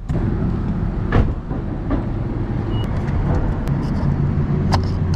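A car running, heard from inside: a steady low engine and road rumble, with a few sharp knocks or clicks, the loudest about a second in.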